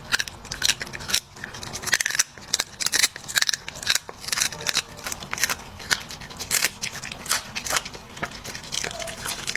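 A dog chewing and crunching its food, with sharp, irregular crunches a few times a second.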